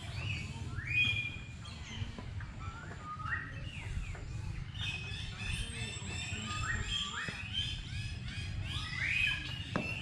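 Birds calling in a busy chorus of short, repeated chirps and squawks, a few each second and overlapping, over a low rumble.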